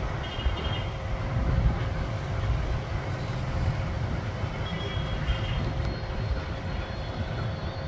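Nilgiri Railway steam locomotive and its train moving off: a steady low rumble with no clear beat.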